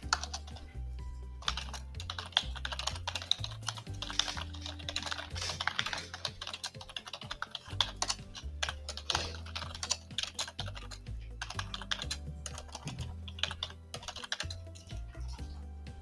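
Computer keyboard typing: runs of quick, irregular key clicks, pausing briefly near the end. Background music with low bass notes plays underneath.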